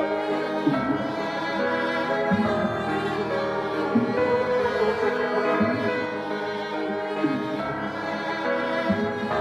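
Background music: bowed strings, violin and cello, playing sustained notes with vibrato.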